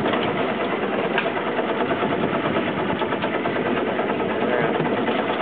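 A boat's engine idling steadily.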